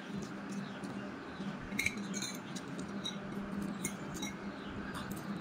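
A metal fork clinking and scraping lightly against a ceramic plate of noodles a few times, the clearest clinks about two seconds in, over a steady low hum.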